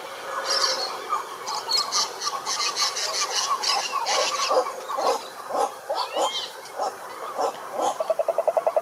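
A chorus of frogs croaking, many overlapping short calls. Near the end a fast, even pulsing trill starts up.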